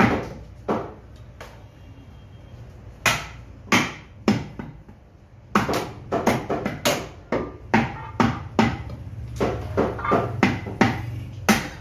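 Butcher's meat cleaver chopping beef on a thick wooden chopping block. A few scattered blows come first, then a quick run of strikes, about three a second, from about halfway in.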